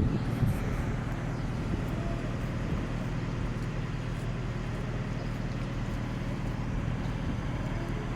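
A large engine running steadily with a low hum, with a few knocks in the first half-second.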